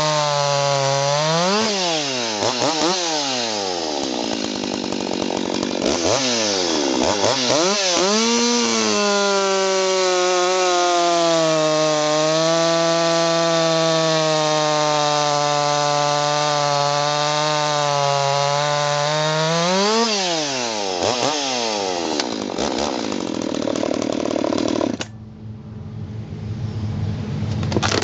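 Ported Husqvarna 359 two-stroke chainsaw with an opened-up muffler, revved sharply up and down several times. It is then held at full throttle cutting wood, its pitch sagging under load and recovering. About 25 seconds in it drops abruptly back to idle.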